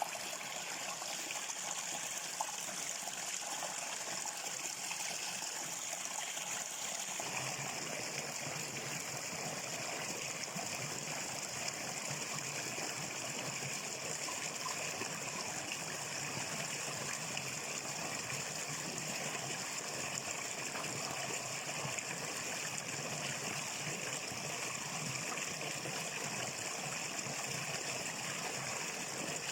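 Steady running water of a stream, trickling and flowing. About seven seconds in the sound grows fuller and lower, then runs on evenly.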